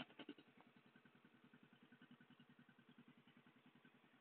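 Euro X125 motorcycle engine idling through its original exhaust pipe. It beats faintly and evenly, about ten times a second, after a louder burst that dies away in the first half second.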